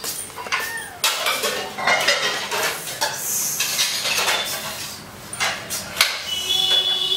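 Clattering and clinking of hard objects, like dishes and cutlery being handled, in a rapid run of sharp knocks and clinks.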